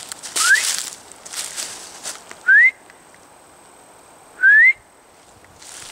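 Someone whistling three short rising notes about two seconds apart, loud and close. Footsteps crunch through dry leaves in the first couple of seconds, then stop.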